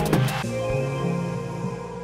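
Background music: held tones over a stepping bass line, with a few percussive hits in the first half second.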